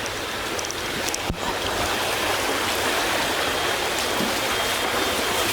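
Steady rush of heavy rain and flowing floodwater, a little louder after about a second.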